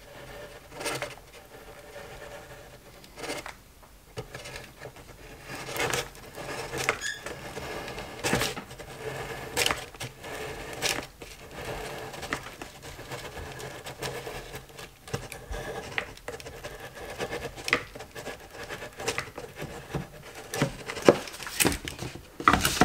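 Hot glue gun being run along a foam board seam: irregular small clicks and scratches from the trigger feed and the nozzle dragging on the board. A couple of louder clacks near the end as the gun is set down on its stand.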